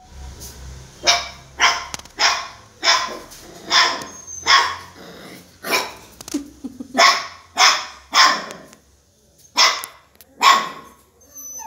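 A dog barking in short, sharp barks, about a dozen of them at uneven intervals.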